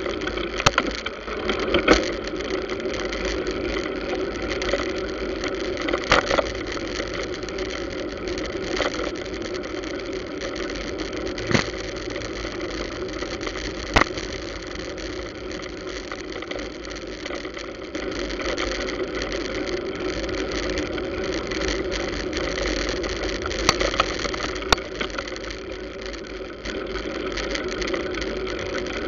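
Street traffic of motorcycles and cars, their engines running steadily close by, with a few sharp clicks and knocks scattered through.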